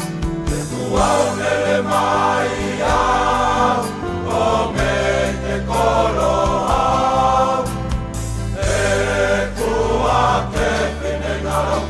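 Music: choral singing in short phrases over sustained low accompaniment chords.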